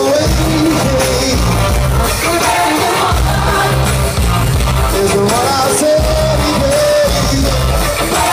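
Live rock band playing loud: a male lead voice sings over electric guitars, bass and drums.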